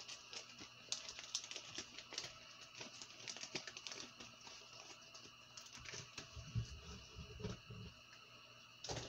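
Faint, scattered clicks and crinkles of plastic fishing-lure packaging being handled, with a few soft low thumps about six to eight seconds in.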